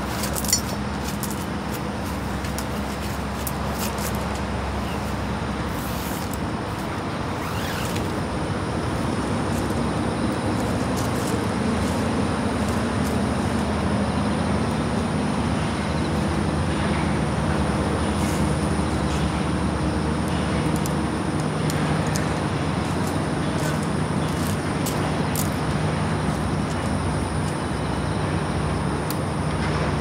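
Motor vehicle running on the road: a steady engine hum under road noise, with a few faint clicks.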